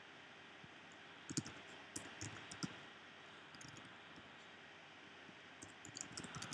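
Computer keyboard being typed on: short clusters of soft key clicks with pauses between them, over a steady faint hiss.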